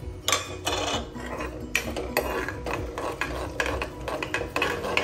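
Steel spoon stirring and scraping sesame and mustard seeds around a small aluminium kadai of hot tempering oil, in a run of irregular scrapes and clicks.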